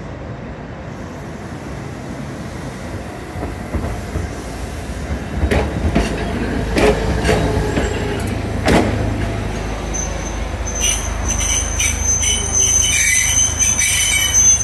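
Toyohashi Railway 3500-series tram pulling away and passing close by, its wheels clacking several times over the points, then its wheels squealing high and shrill on the curve for the last few seconds.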